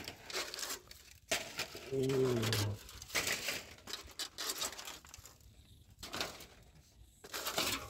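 Rusty corrugated metal sheets being handled and shifted by hand: scattered short scrapes and knocks. A short voiced exclamation about two seconds in.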